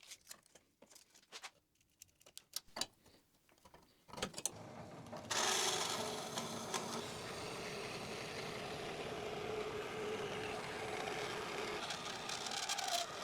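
A few faint clicks and knocks of metal being handled, then a workshop machine starts about four seconds in and runs steadily with a constant mid-pitched hum and a hiss.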